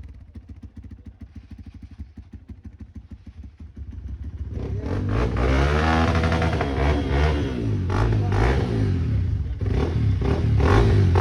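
Hero Xpulse single-cylinder motorcycle engine through an echo-tip exhaust, idling with a fast, even thump at first. From about four and a half seconds in it is revved up and down repeatedly, much louder.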